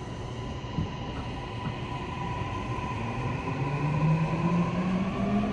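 Toei 6500-series subway car running, heard from inside the car: rail and running noise with the whine of its Mitsubishi hybrid SiC-VVVF traction drive. A steady high tone sits over the rumble, and in the second half a lower tone rises in pitch and the sound grows louder as the train picks up speed.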